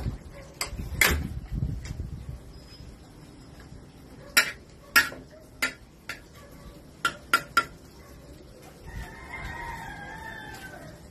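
A slotted metal spatula clinking and scraping against a metal wok in scattered sharp clicks. A rooster crows near the end.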